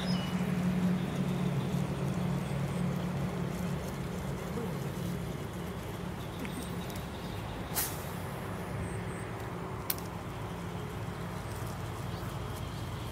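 A steady low mechanical hum like a running motor, a little louder in the first few seconds, with two short sharp clicks about eight and ten seconds in.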